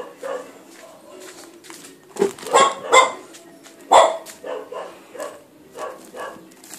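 A dog barking repeatedly in short barks, loudest about two to four seconds in.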